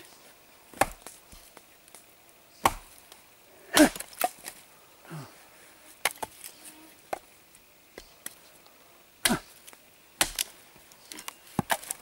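An axe splitting a dry branch on a wooden chopping stump: about ten sharp chops at irregular intervals, the loudest about four seconds in.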